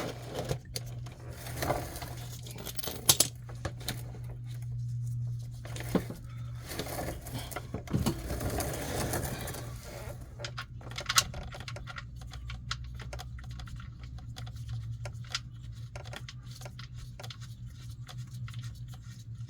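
Hand work on the oil drain plug under the car: scattered metal clicks and taps with rustling handling noise, over a steady low hum.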